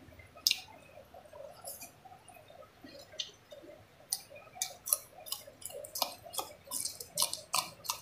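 Close-up chewing with soft wet mouth clicks, turning about halfway through into a quick run of crisp crunches as a raw green bean is bitten and chewed.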